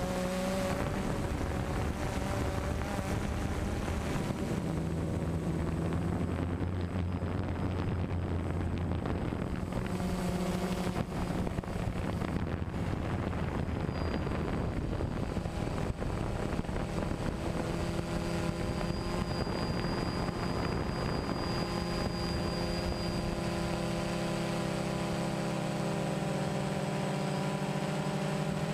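DJI Phantom 1 quadcopter's motors and propellers humming steadily, the pitch stepping up and down every few seconds as the throttle changes, with wind noise on the microphone.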